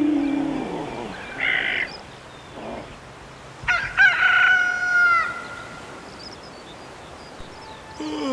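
Rooster crowing once, a single cock-a-doodle-doo lasting about a second and a half and falling away at its end, the loudest sound here; before it a low drawn-out tone bends downward and fades within the first second.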